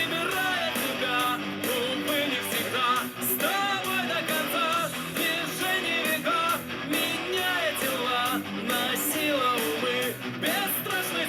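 Rock song with a singing voice and guitars, played back through a portable Bluetooth speaker for a loudness test.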